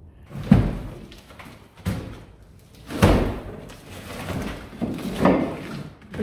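Heavy thuds and knocks as large oak log rounds are tipped and rolled across a pickup truck's bed, about four separate impacts with the loudest about half a second in.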